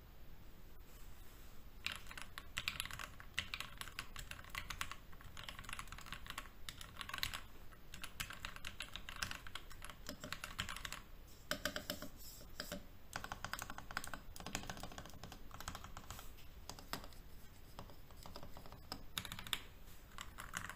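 Typing on a mechanical keyboard fitted with PBT keycaps: quick runs of key clacks in bursts with short pauses, quieter for the first couple of seconds.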